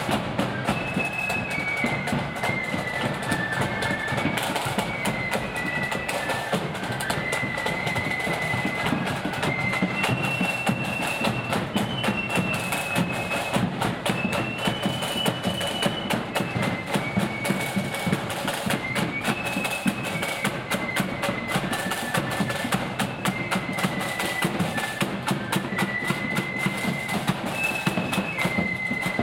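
Blood-and-thunder marching flute band playing a tune: massed flutes carry a stepping, high melody over rapid snare drumming and a bass drum beat.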